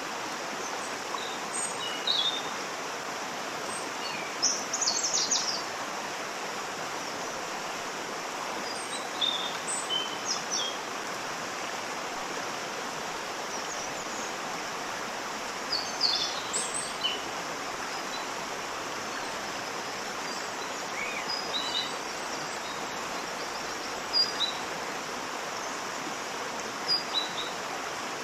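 Steady rushing of a waterfall, with small birds chirping in short high calls that come and go several times over it.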